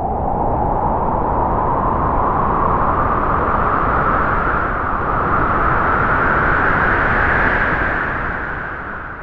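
A gust of wind: a loud rushing whoosh whose pitch rises slowly, then dies away near the end.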